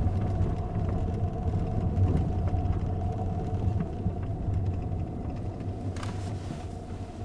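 Interior of a car with the windows closed: a steady low rumble from the vehicle with a faint constant hum above it, easing off slightly in the second half.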